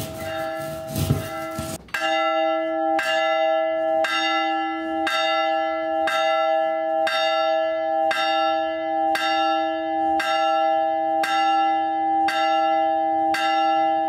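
Church bell rung from a rope, its clapper striking in a steady rhythm about once a second. Each stroke rings on into the next. The ringing dips briefly about two seconds in, then the even strokes carry on.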